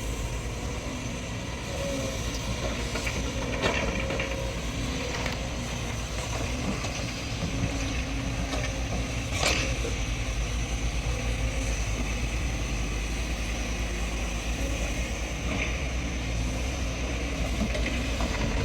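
SANY hydraulic excavator's diesel engine running steadily as it digs and casts soil, with a few sharp knocks, the loudest about nine and a half seconds in.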